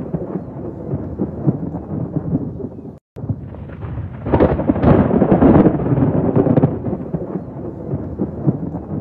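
Thunder rumbling continuously over heavy rain. A louder roll of thunder swells about four seconds in and dies back over a couple of seconds. The sound cuts out completely for a split second about three seconds in.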